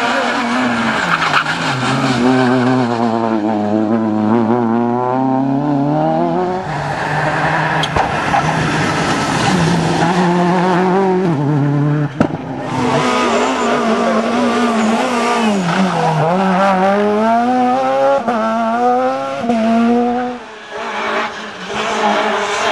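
Rally car engines revving hard through the gears as the cars accelerate past, first a Citroën Saxo and then others. The pitch climbs and drops sharply again and again with each gear change. The sound breaks off abruptly about twelve seconds in and picks up on another car.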